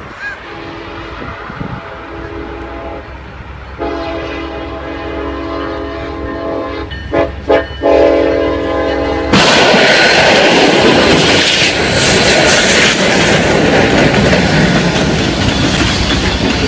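Locomotive air horn sounding a held chord, which gets louder about four seconds in, then two short blasts. About nine seconds in, the loud steady noise of the train passing close by takes over.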